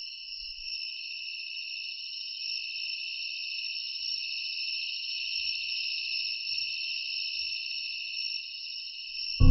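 Steady high-pitched insect chirring, like a chorus of crickets, holding even throughout. Right at the very end a Tibetan singing bowl is struck and begins ringing with several steady tones.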